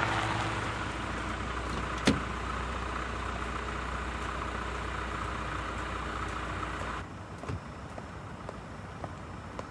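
A vehicle running steadily, with one sharp click about two seconds in; after about seven seconds it cuts to a quieter background with a few faint ticks.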